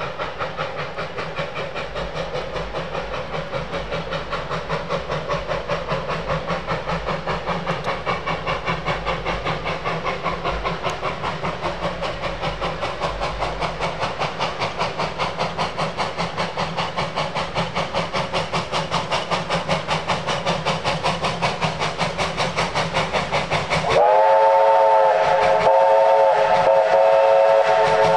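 Narrow-gauge steam locomotive 12A working steadily, its exhaust chuffing in a rapid, even beat that grows slightly louder. About 24 seconds in, its VR five-chime whistle sounds, a chord of several tones held for about four seconds.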